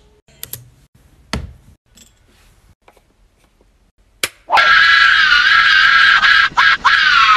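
A few soft clicks and knocks. Then, about four and a half seconds in, a loud, high-pitched, wavering scream starts, holds for nearly three seconds and stops abruptly.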